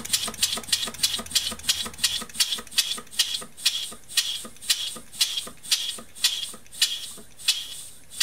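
Scratch-built oscillating-cylinder engine running on compressed air, giving a sharp puff of exhaust air with each stroke. The puffs come about three a second at first and slow steadily to under two a second, growing quieter.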